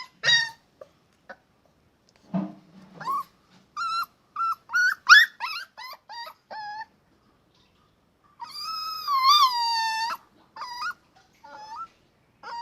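Dog whimpering and yipping: a run of short, high whines, then one long whine about eight seconds in, then a few more short ones.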